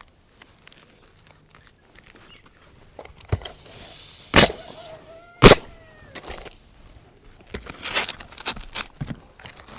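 Work on a metal roof ridge cap: scattered knocks and clatter, with a brief hiss and then two loud sharp bangs about a second apart in the middle, and a run of lighter knocks near the end.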